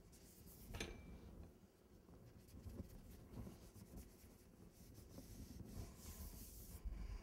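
Near silence with faint rubbing and rustling as hands smooth rolled fondant down the sides of a cake, with a brief rustle just under a second in and a longer one about six seconds in.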